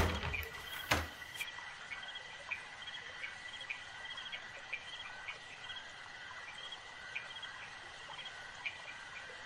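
Night insects, crickets among them, chirping: a steady high trill under short chirps that repeat at an even pace. In the first second, a couple of palm thumps on a wooden door stand out above them.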